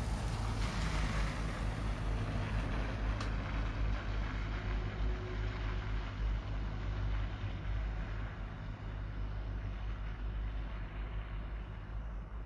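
Wind rumbling on the microphone, with a vehicle's tyre hiss on the wet, snowy street swelling about a second in and fading away over the next several seconds.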